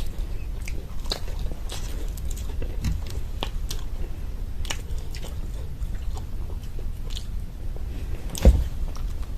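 Close-up chewing and biting of a crunchy homemade samosa, with scattered crisp crunches of the fried pastry. One louder thump near the end.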